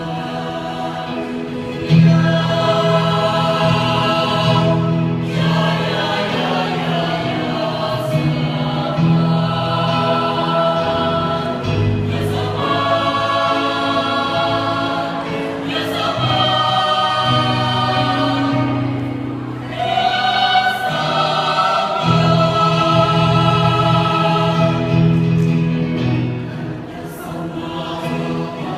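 A choir singing in several voice parts, holding long chords that change every few seconds, with short breaks between phrases; the singing swells noticeably about two seconds in.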